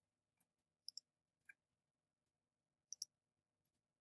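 Computer mouse clicks in near silence: two quick double clicks, one about a second in and one about three seconds in, with a fainter single click between them.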